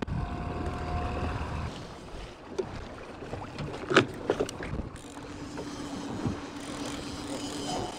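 Boat motor humming steadily under wind on open water, with a few sharp clicks and knocks about four seconds in as a rod and line-counter baitcasting reel are handled.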